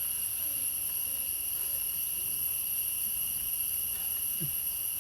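Steady, high-pitched chorus of forest insects shrilling without a break.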